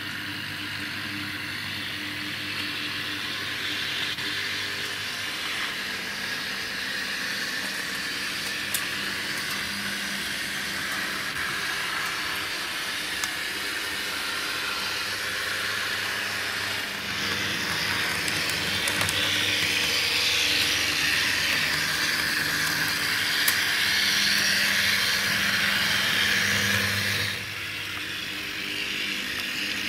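H0-scale model tram running on layout track: a steady whirring hiss from its small motor and wheels over a low hum, with a few faint clicks. The sound grows louder a little past halfway, holds for about ten seconds, then drops back.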